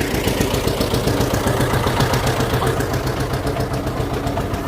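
An engine running steadily close by, with a fast, even pulse.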